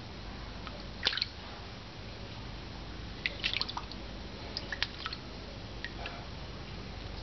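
A cat's paw dabbing at pond water: short, scattered splashes and drips, one about a second in, then a quick run of them in the middle and a few more near the end.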